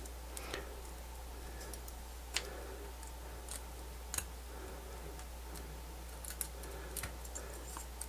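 Small pliers clicking and tapping faintly as single-strand copper wire is wrapped into a loop through a 3D-printed plastic battery adapter: a handful of scattered clicks, the sharpest about two and a half and four seconds in.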